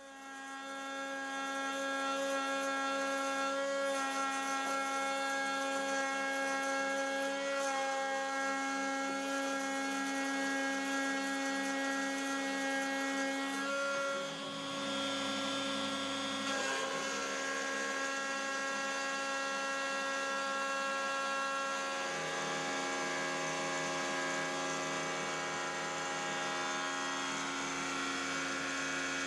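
DeWalt router spindle on a WorkBee CNC machine running at its lowest speed, about 16,000 rpm, while milling 3 mm mild steel: a steady whine at an unchanging pitch. The sound shifts slightly about halfway through, and a lower hum joins later on.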